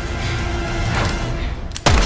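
Dramatic action-film background music with held tones, then a sudden loud hit sound effect near the end, trailing into a deep falling boom.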